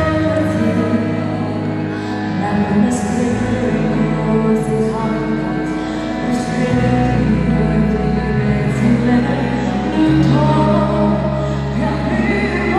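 A man and a woman singing a duet into microphones over amplified musical accompaniment.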